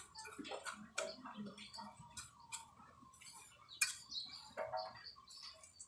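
Pointed steel trowel scraping and tapping on wet cement mortar as it is spread and smoothed over an old concrete floor: a string of irregular short scrapes and clicks, with a sharper knock about four seconds in.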